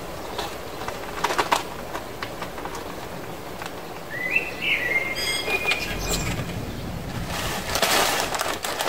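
Hands repotting succulents: soil and plant rustling and scraping, with a few sharp clicks about a second in, a short high chirp near the middle, and louder scraping near the end.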